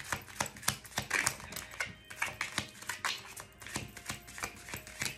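Tarot deck being shuffled by hand: a quick, irregular run of card clicks and slaps, about four to six a second.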